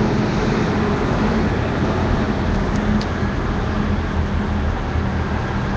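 Steady city street traffic: a continuous rumble of road noise with a low, even engine hum.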